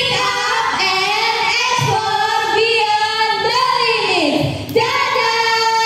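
Schoolgirls singing into handheld microphones, a melodic song with long held notes and some vibrato.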